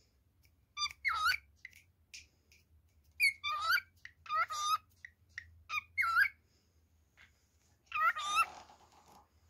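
Male cockatiel whistling and warbling in short bursts of quickly rising and falling notes, calling for its mate. There are about six bursts, with a pause of about a second and a half before the last one.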